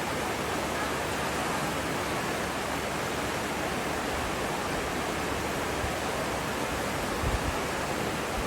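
Steady rushing noise, like rain or running water, with a couple of low thumps near the end.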